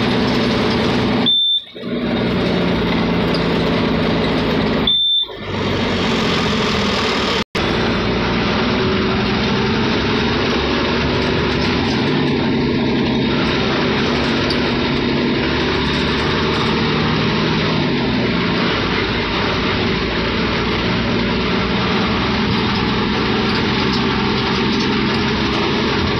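Steady engine and road noise heard from inside a moving vehicle in city traffic. Two brief high beeps come in the first few seconds, each followed by a momentary dip in the sound.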